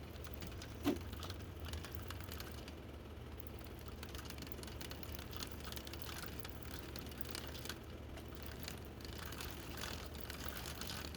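Motorized bicycle engine idling with a steady low hum, while the chain and drive clatter and click irregularly; one sharper knock with a short squeal about a second in. The rattle comes from a wobbling chain driven off the engine's pinion gear.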